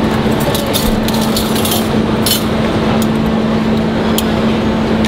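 Metal fork and spoon clinking lightly against crockery several times, over the loud, steady rush and hum of a hawker centre's ventilation fans.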